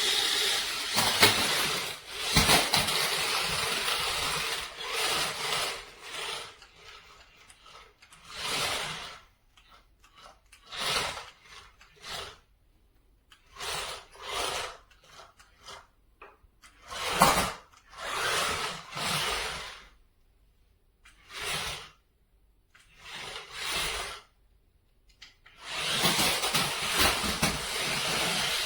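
Battery-powered 4WD RC stunt car being driven, its electric motors and gearboxes running in repeated short bursts with quiet gaps between, longer runs at the start and near the end.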